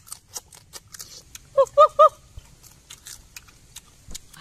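Boiled crab shell cracking and crunching as it is bitten and chewed, a scatter of sharp clicks. About a second and a half in come three short high calls in quick succession, the loudest sounds here.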